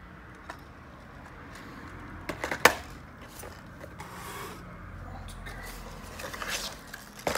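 Packaging handled on a desk: clear plastic lure boxes and a cardboard box being moved and opened, with rustling and a few sharp clicks and knocks, the loudest about two and a half seconds in.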